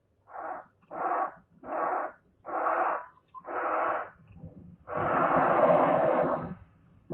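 Designed Dilophosaurus call made from blended animal recordings: five short, breathy calls in an even rhythm, then one longer, louder call of about a second and a half.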